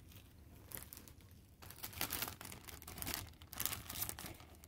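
Clear plastic sleeve crinkling and rustling as a photo print is pulled out of it and handled. It starts about a second and a half in.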